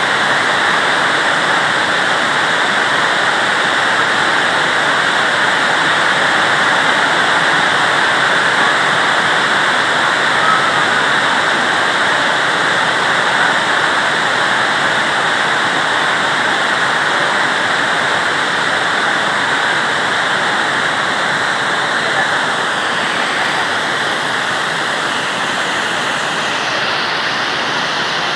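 Heavy downpour: rain pouring steadily onto dense foliage, a loud, even hiss that turns a little duller near the end.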